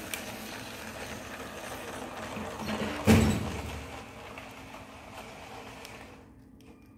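A LEGO train running on plastic track with a steady whir, and one loud thump about three seconds in; the running sound fades near the end.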